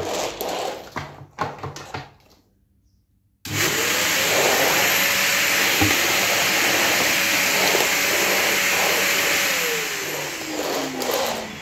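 Canister vacuum cleaner switched on about three seconds in: its motor spins up and then runs at a loud, steady rush. Near the end its pitch falls as the motor slows down.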